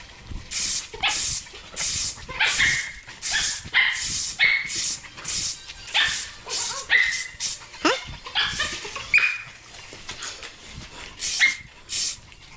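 A dog barking and yipping in quick short bursts, about two a second, pausing around ten seconds in before a few more barks.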